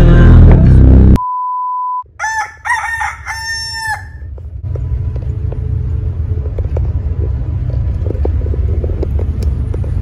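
A loud sound cuts off about a second in and is followed by a short steady beep tone. Then comes a rooster crowing cock-a-doodle-doo in several rising and falling parts, dropped in as a morning sound effect. After that, the steady low rumble of a coach bus on the road.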